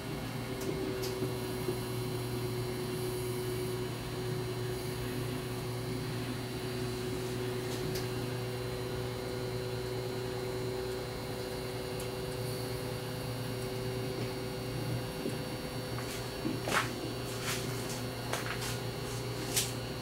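Panasonic inverter microwave oven running at full power heating a mug of water: a steady hum with a few steady tones over it. A few sharp clicks come near the end.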